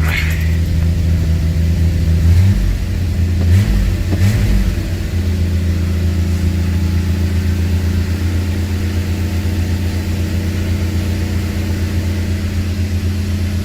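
1982 Ford Granada's straight-six engine running at fast idle on a choke that is slow to open. A few seconds in, the engine speed dips and rises briefly, then it settles into a steady idle.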